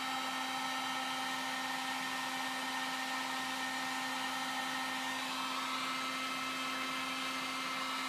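A 1500 W electric heat gun running steadily, a steady airflow hiss with a constant motor whine, as it blows hot air to melt wax into fabric.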